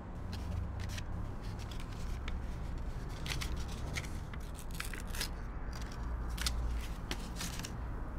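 Scattered soft clicks and rustles of small hand movements, about ten spread irregularly, over a low steady hum.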